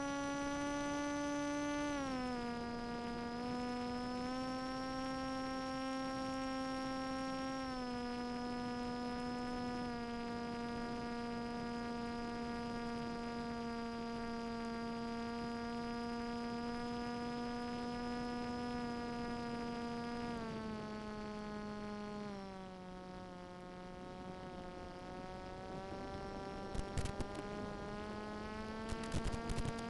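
Steady whine of the flying wing's brushless outrunner motor and propeller, carried over the 5.8 GHz video link's audio, dropping in pitch in steps as the throttle is eased back, then slowly rising again near the end. A few short crackles near the end.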